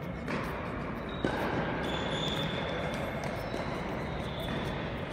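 Ambience of an indoor tennis hall: tennis balls bouncing and being struck on the courts, echoing, with a sharp knock about a second in and faint voices. A few steady high tones come and go over it.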